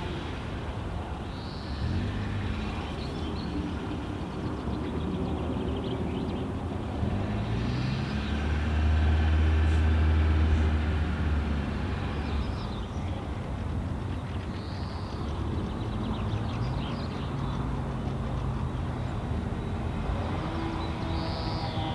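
Low, steady engine-like rumble whose pitch shifts now and then and swells about 8 to 12 seconds in, with four short high bird chirps at intervals of several seconds.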